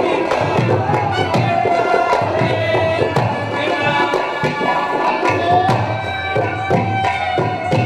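Instrumental passage of Haryanvi folk music: a dholak drum beats a steady rhythm under a sustained reed melody.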